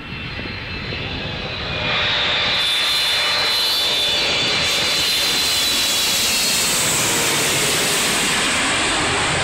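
Boeing 777 on final approach passing low overhead. Its twin jet engines swell to a loud, steady rush about two seconds in, with a high whine running through it.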